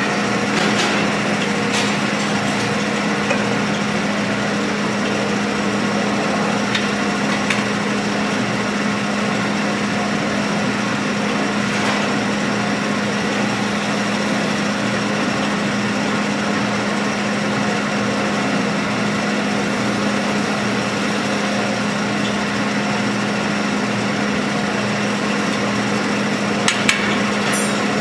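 Metal-spinning lathe running steadily with a constant hum while a hand-levered spinning tool rubs against the rotating metal dome as it is formed. A couple of sharp clicks come about a second before the end.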